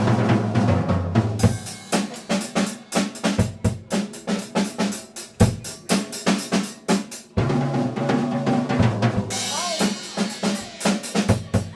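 Drums played in a busy rhythm: a dense run of sharp strikes, with held low tones under them in a couple of stretches.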